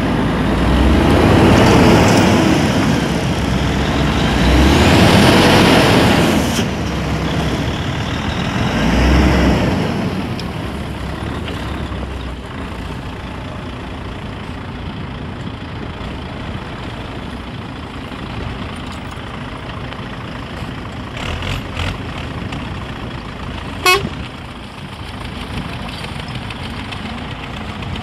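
Diesel tractor engine working hard under load in snow, surging three times over the first ten seconds and then running more steadily. A short horn toot comes near the end.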